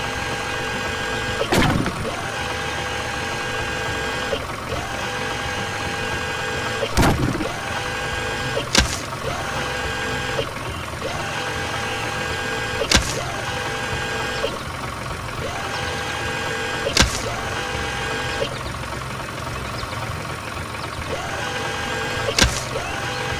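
Cartoon vehicle engine sound effect running steadily in a repeating loop, with a sharp knock six times at irregular intervals.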